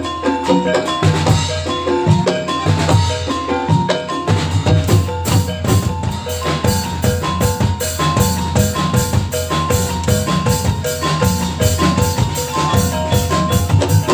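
Reog gamelan music playing loudly through a loudspeaker stack: drums under a repeating gong-chime and metallophone melody. A regular high percussive stroke, about three a second, joins about five seconds in.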